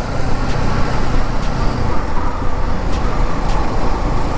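Bajaj Pulsar NS200 motorcycle on the move: the engine runs steadily under a constant rush of wind and road noise.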